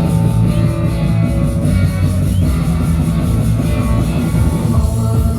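Loud rock music played over a sound system, with heavy bass and guitar.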